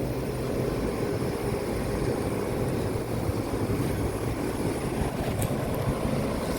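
Several outdoor air-conditioner condensing units running together: a steady whoosh of condenser fans over a low compressor hum.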